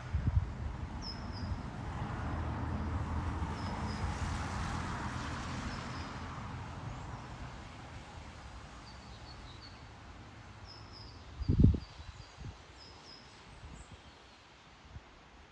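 Outdoor ambience of short, high bird chirps scattered throughout over a low rumble, with a brief low bump at the start and a louder low thump about twelve seconds in.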